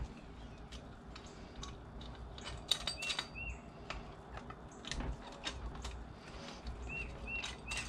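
Faint clicks and light metal taps of a flathead screwdriver unscrewing the jet stacks from an IDF clone carburetor and the small brass parts being set down. A few short high chirps come about three seconds in and again near the end.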